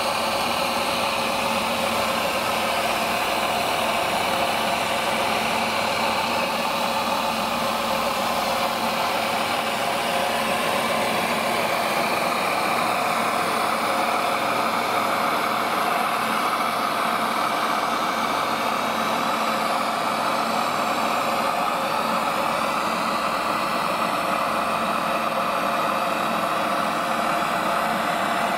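Electric water pump of a radio-controlled model fire truck running steadily, with the hiss of water jets spraying from its two roof monitors.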